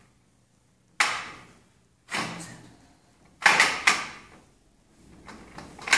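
Metal frame parts of a camera tracking dolly knocking together as the wheeled cross-frame is fitted and adjusted on the floor: four sharp clunks over about three seconds, each trailing off, then softer handling noise.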